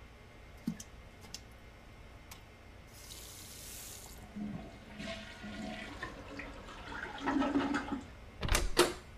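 Toilet flushing, the water rush building over several seconds. Two sharp knocks follow near the end.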